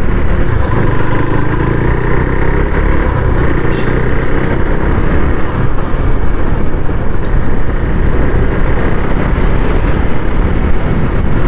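KTM Duke 390's single-cylinder engine running steadily while riding, mixed with the rush of wind and road noise.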